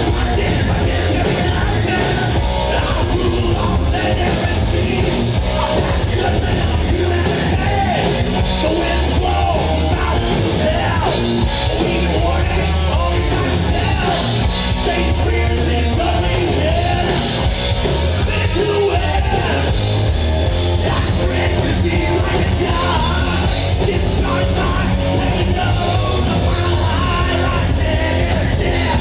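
Live heavy metal band playing a song at full volume: distorted guitars, bass and drums, with a singer over them.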